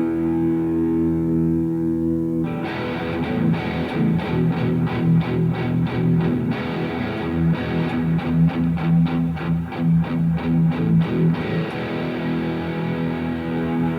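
Electric guitar played through a Revv G3 distortion pedal into an amp. A held chord rings for about two and a half seconds, then comes a fast run of rhythmic picked chugs, and a held chord rings again near the end.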